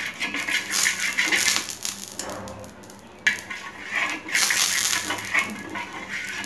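A steel spoon scraping and spreading oil across a cast-iron dosa tawa in quick gritty strokes. The scraping eases off a little before halfway and starts again sharply just after.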